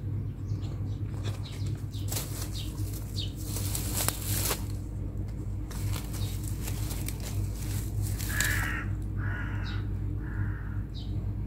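Two cats wrestling in dry grass and twigs, the dry stalks rustling and crackling in irregular bursts under their bodies and paws. A steady low hum runs underneath.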